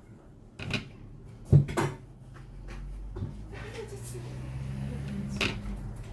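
Knocks and clatter of lemons and kitchen things being handled and set down on a work surface, the loudest about one and a half seconds in. A steady low hum comes in behind from about halfway.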